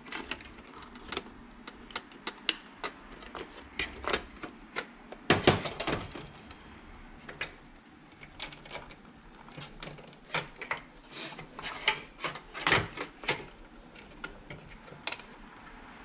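Hands prying a microwave's control circuit board out of its plastic mounting: scattered clicks and knocks of plastic and board, loudest about five seconds in and again about twelve to thirteen seconds in.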